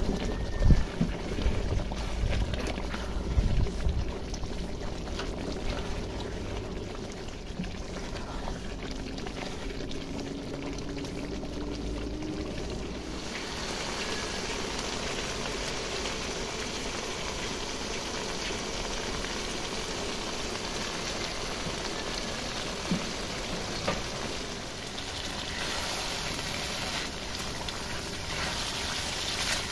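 Chicken pieces bubbling and sizzling in thick sauce in a metal wok, stirred with a spatula, with some low knocks in the first few seconds. The sizzle turns brighter and hissier about halfway through.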